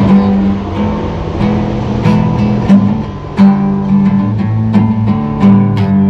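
Music: guitar strumming chords, with sharp plucked attacks every half second or so.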